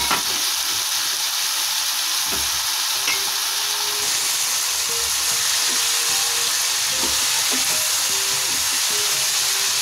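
Chopped vegetables (cauliflower, potato, carrot and green beans) sizzling steadily as they fry in hot oil and spices in a pan, stirred with a spatula. A single sharp knock comes right at the start.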